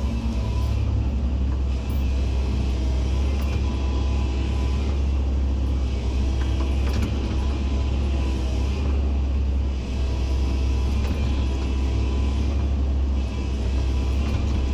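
Hydraulic excavator's diesel engine running at full throttle in P (power) mode, a steady low drone with a few brief dips as the machine works.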